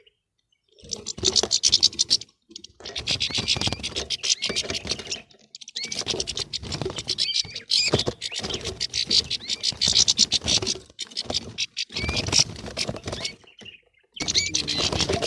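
A flock of European goldfinches twittering and squabbling: a dense, rapid clicking chatter laced with short chirps. It comes in several stretches broken by brief silent gaps.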